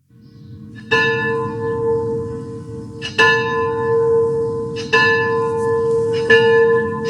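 A single bell of one pitch tolling, struck four times about two seconds apart, each stroke ringing on into the next.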